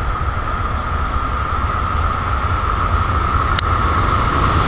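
Approaching DB double-deck regional train, control car leading: a steady rumble of wheels on rail with a constant higher ring above it, growing slightly louder, and one sharp click about three and a half seconds in.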